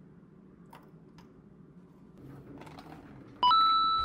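Faint scattered clicks of glass marbles being handled in a cardboard tray. Near the end a sudden bright ringing tone sounds and holds for under a second, much louder than the clicks.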